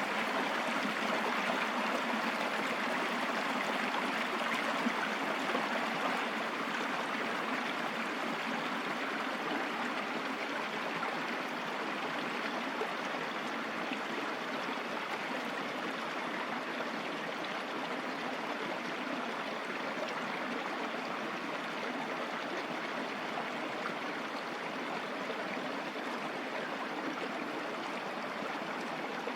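Mountain stream running over rocks: a steady rushing and babbling of water.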